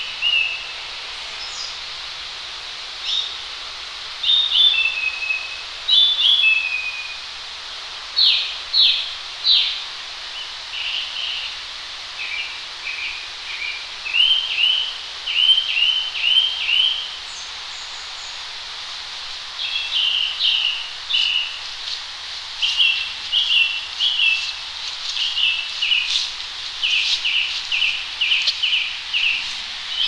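A songbird singing short phrases, each a quick run of two to five repeated high notes, with brief pauses between phrases. Underneath is a steady hiss of distant road traffic.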